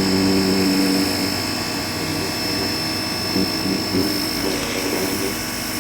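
Ryobi 1600 PSI electric pressure washer running: a steady motor-and-pump hum under the hiss of the water jet, with a high whine running through it.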